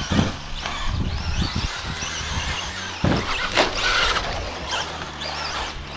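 Radio-controlled Traxxas Slash short-course trucks with brushless motors racing on dirt: a high electric-motor whine that rises and falls again and again with the throttle, mixed with short bursts of tyre and gravel noise.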